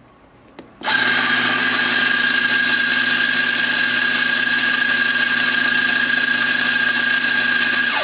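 Mazzer Mini E Type A espresso grinder's flat-burr motor grinding coffee beans, switching on about a second in and running at a steady pitch until it cuts off near the end. It is loud, about 90 decibels on a phone meter with a peak of 100.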